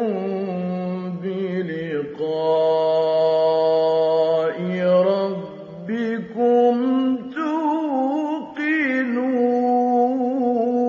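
A man's solo voice chanting Quran recitation in the drawn-out melodic mujawwad style. He holds long notes with wavering ornaments, broken by short pauses for breath.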